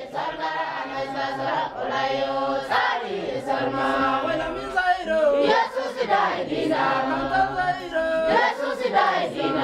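A church congregation singing a worship song together, many voices holding long notes.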